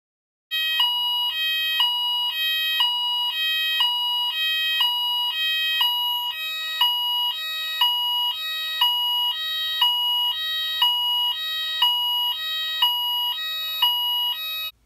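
Phone alarm ringing: an electronic tone alternating between two notes, the pattern repeating about once a second, then cutting off abruptly just before the end.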